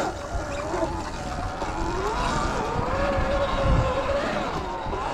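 Sur Ron electric dirt bike's motor whining, its pitch rising and falling with the throttle, over a low rumble from the ride on rough trail.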